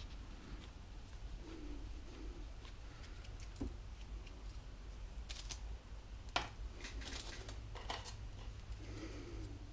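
Faint clicks and rustles of objects being handled on a workbench, with a handful of small sharp clicks bunched in the second half, over a low steady hum.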